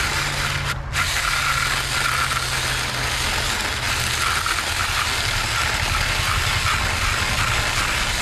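Battery-powered mini electric chainsaw cutting through a log, its chain running steadily through the wood, with a brief break about a second in.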